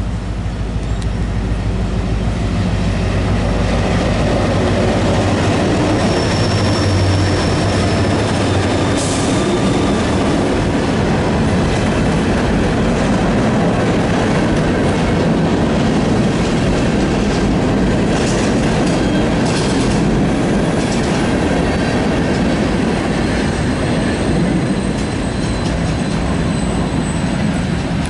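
A freight train's diesel locomotives rumbling past, followed by freight cars rolling by with wheel clatter. Thin high wheel squeals come through briefly, once a few seconds in and again near the end.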